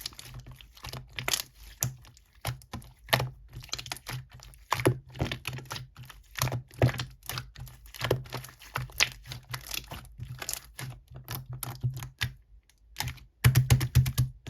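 Irregular quick clicks and taps, coming in short runs with a dense flurry near the end.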